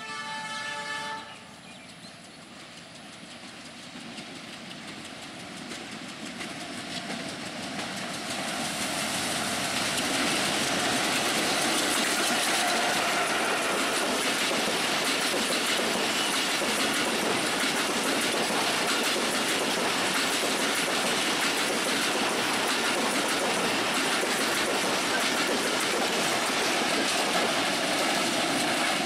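A diesel locomotive's horn sounds one blast about a second long at the start. Then the passenger train runs past at speed, its rumble and wheel clatter building over about ten seconds and holding steady as the coaches pass.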